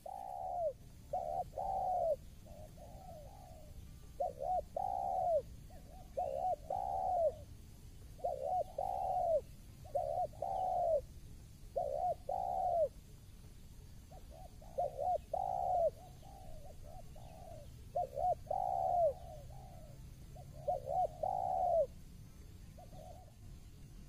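Spotted dove (tekukur) cooing: about ten short phrases, roughly one every two seconds, each a quick run of two to four rising-and-falling coo notes.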